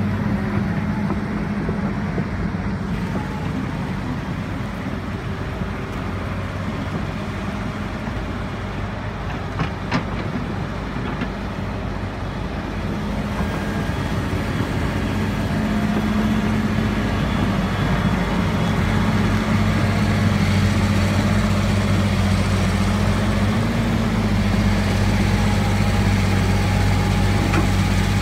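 Fendt 930 Vario tractor's six-cylinder diesel engine running steadily under load as it pulls a dump trailer through snow, growing louder as it comes close. A single short click about ten seconds in.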